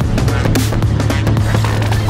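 Background music with a steady drum beat over a deep, sustained bass.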